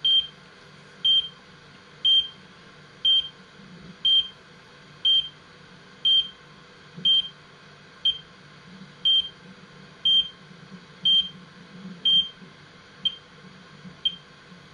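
GPS-ABC time-base beeps, one short high beep each second, played back from a recording through a computer speaker over a steady low hum. The beeps grow fainter near the end.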